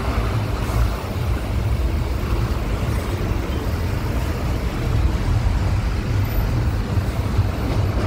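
Road noise from inside a moving vehicle in slow traffic: a steady low rumble of engines and tyres, with trucks running close alongside.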